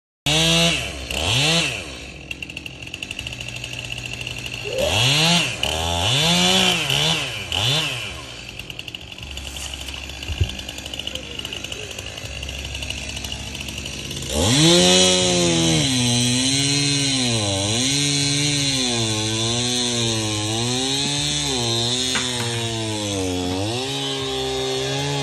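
Chainsaw engine revved in short bursts, then idling. About halfway through it runs at high speed with its pitch repeatedly sagging and recovering under load, as when cutting through a palm trunk.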